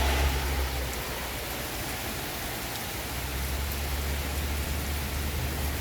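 Heavy rain pouring down steadily while the wind blows it, with a low steady rumble underneath.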